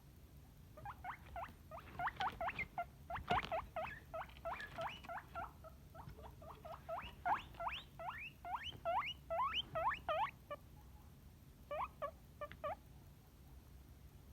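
Guinea pig wheeking: a rapid series of short squeals, each rising sharply in pitch, about four a second. A short pause near the end is followed by a few more squeals.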